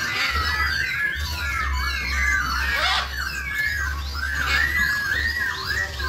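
A flock of small birds chirping and whistling together, many quick rising and falling calls overlapping without a break, over a low steady hum.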